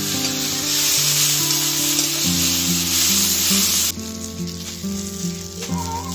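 Food frying in hot oil in a pan: a loud sizzle for about four seconds that suddenly drops to a quieter sizzle. Background music with held notes plays underneath.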